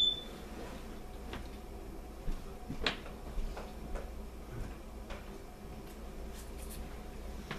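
A spoon clinks once against a soup bowl with a short ring, then a few scattered soft clicks and knocks over a steady low hum.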